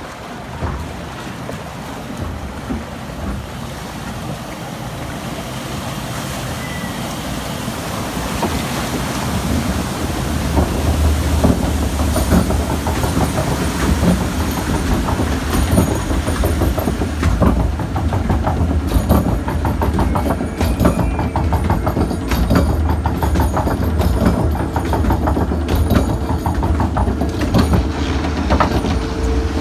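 Arrow Dynamics log flume boat in the water trough, water and wind rushing, then hauled up the lift hill: from about ten seconds in the lift conveyor clatters in rapid clicks over a loud low drive hum.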